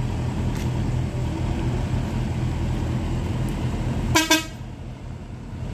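A vehicle engine running with a steady low rumble, then about four seconds in a vehicle horn gives a short double toot, after which the engine sound falls quieter.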